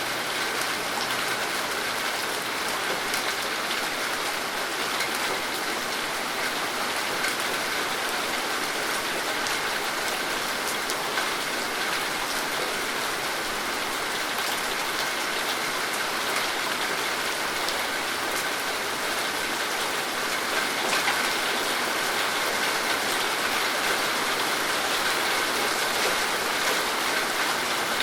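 Steady rain falling, with dense pattering of drops striking a surface.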